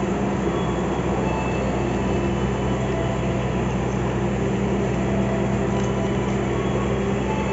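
A standing diesel train idling at the platform, giving a steady low engine drone with a constant hum.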